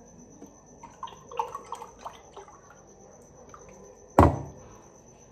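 Orange juice poured from a carton into a glass, with small splashes and glugs. A single sharp knock about four seconds in is the loudest sound.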